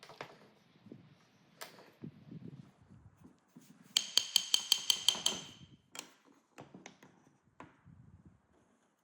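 A quick run of about nine light hammer taps on steel, about six a second, each ringing clearly, among scattered knocks and clinks of steel parts being handled.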